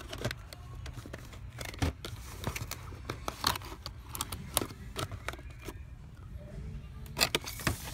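Boxed die-cast model cars being handled and shuffled on a store shelf: irregular clicks and knocks of cardboard and plastic packaging, with a louder cluster near the end, over a steady low hum.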